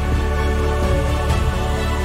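Background music with sustained chords.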